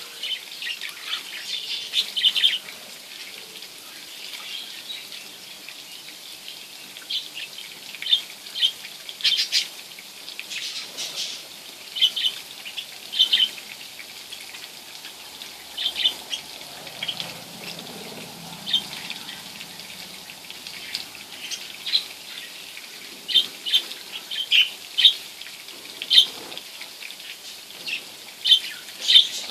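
Budgerigars chirping: short, high chirps coming singly and in little clusters every second or two, over a faint steady hiss.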